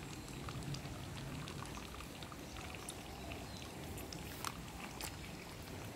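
Water running and trickling in a canal, a steady wash scattered with small splashes and ticks, two of them sharper near the end.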